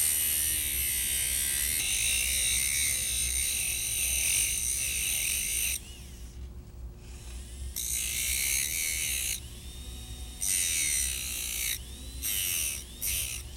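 Dental lab handpiece spinning a medium-grit Moore's sanding disc against a soldered crown joint, smoothing its rough areas: a high whine in one long run of about six seconds, then three shorter runs with pauses between.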